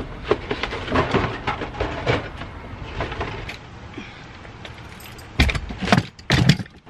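Metal frame of a folding utility wagon rattling and clicking as it is collapsed and handled, then several loud thumps in the last two seconds as it is pushed into an SUV's cargo area.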